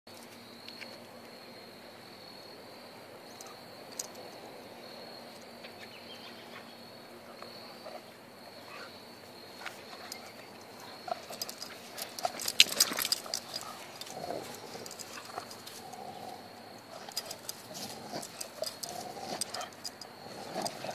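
Two dogs tugging at a rubber toy between them: scuffling and knocking, loudest in a burst of sharp clicks and scrapes about twelve seconds in, then short play growls and grunts over the last several seconds. A steady high-pitched insect trill runs underneath.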